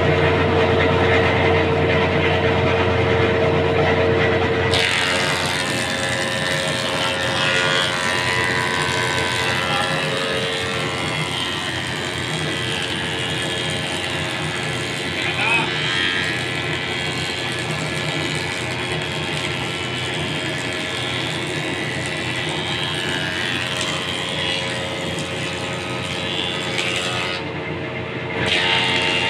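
A machine running steadily, its sound changing about five seconds in.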